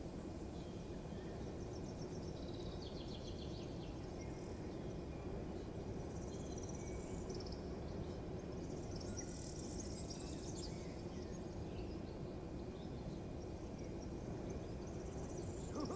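Birds chirping and trilling at intervals over a steady low background hum of outdoor morning ambience.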